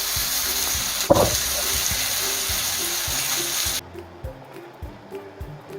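Beef burger patty sizzling in a frying pan, a steady hiss with a knock about a second in, over background music with a steady beat. The sizzling cuts off suddenly about two-thirds of the way through, leaving only the music.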